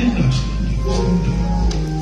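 Gospel music with sustained chords. A pitched line slides and fades out about half a second in.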